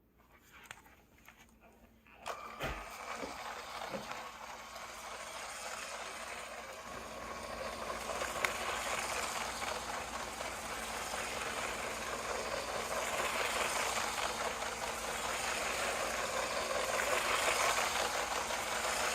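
LEGO City 60197 passenger train's battery motor and wheels running around the plastic track. The steady running noise starts about two seconds in and grows gradually louder as the train's speed is stepped up.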